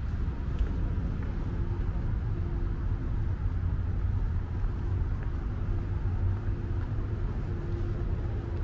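Low, steady outdoor rumble of a city street at night, with a faint steady hum underneath.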